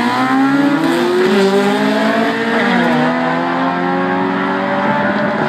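Nissan Sunny van's engine at full throttle on a quarter-mile drag run, the revs climbing as it pulls away, with an upshift dropping them about two and a half seconds in before they climb again.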